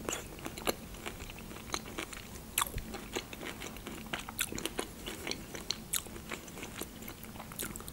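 Close-miked biting and chewing of a canned pineapple ring: a string of irregular small mouth clicks and juicy bites.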